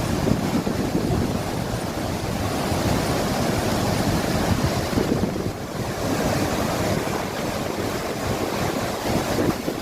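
Athirappilly waterfall's water rushing with a steady roar, with wind buffeting the microphone.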